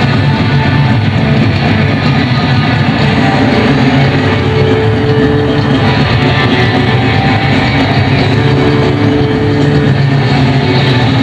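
Loud live punk-rock band playing distorted electric guitar and bass as a dense, steady wall of sound, with a couple of held notes standing out.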